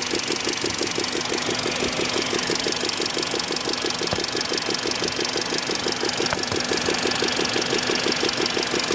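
Warm car engine idling with a fast, even ticking of about six ticks a second from the valve train. It is a hydraulic lifter knocking once the engine is hot, which the owner puts down to a lack of oil pressure at the lifter.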